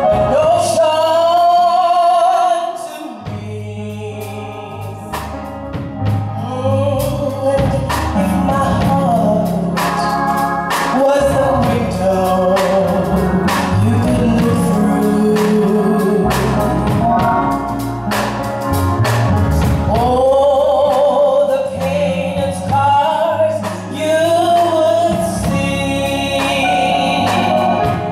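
A gospel song sung by women through microphones and a PA, over instrumental backing with held bass notes and a steady beat. The sound softens briefly about three seconds in.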